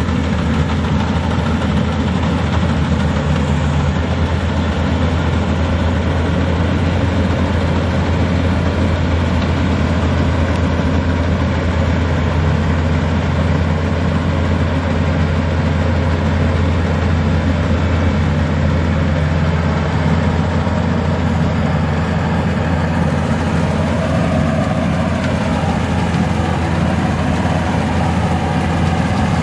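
Maxxi Bimo combine harvester's engine running steadily with a deep, even hum. Near the end a faint higher whine briefly wavers in pitch.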